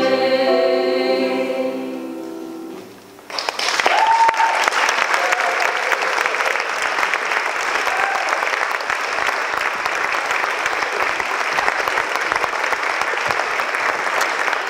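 A large choir with acoustic guitars holds its final chord and lets it fade away over about three seconds. The audience then breaks into steady applause, with one voice calling out just as the clapping starts.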